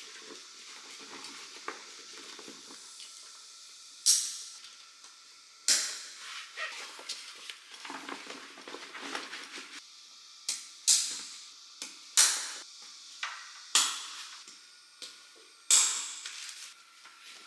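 A series of about seven sharp knocks at irregular intervals, each ringing briefly, over quieter rustling and handling noise.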